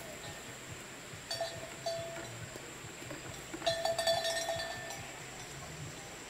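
A metal bell clanking in two irregular bursts, one about a second in and a louder, longer one near the four-second mark, each strike ringing on briefly. A steady high-pitched whine runs underneath.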